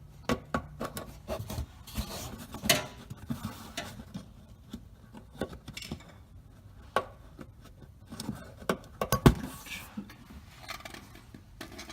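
Flathead screwdriver prying plastic push-pin bumper clips loose: irregular clicks, taps and metal scraping on plastic, with a louder knock about three quarters of the way through.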